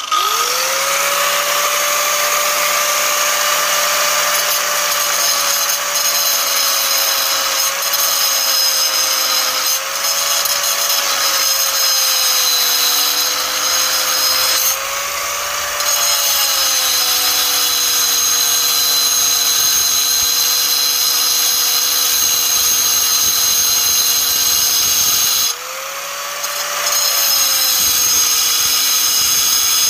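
Electric angle grinder spinning up and cutting through the steel diagonal struts of a REVA G-Wiz seat frame. Its pitch sags a little as the disc bites. About 25 seconds in it dies down briefly and spins back up.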